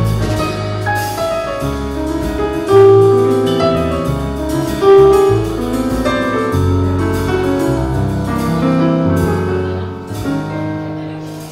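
Jazz piano trio playing live: piano chords and melody over a low bass line.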